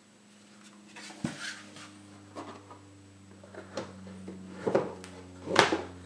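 Cloth-covered boards of a book cradle being handled and set into a cloth-covered box: several soft taps and brushing rubs, the loudest a little before the end.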